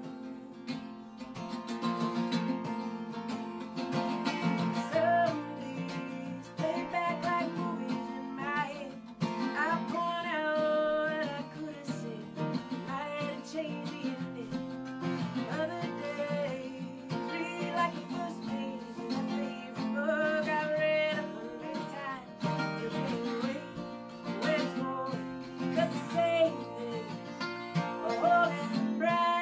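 Live acoustic folk song: a woman singing to her own strummed acoustic guitar, accompanied by an octave mandolin, an instrument pitched an octave below a mandolin in the guitar range.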